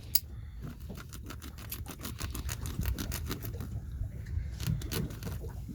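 Serrated knife edge sawing through nylon fishing net: a rapid, irregular scratchy rasping.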